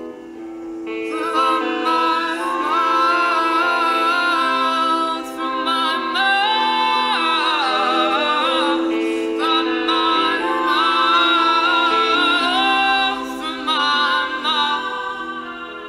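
Background song: a slow sung melody with held, gliding notes over sustained chords. It is softer at the start and swells about a second in.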